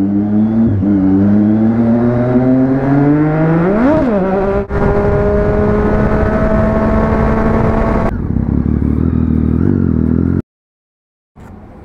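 Triumph Street Triple's three-cylinder engine under way, its pitch climbing steadily as the bike accelerates, with a quick rise and fall in revs about four seconds in. Near eight seconds the throttle eases and it runs lower and steadier, then the sound cuts off abruptly about ten seconds in and comes back much quieter.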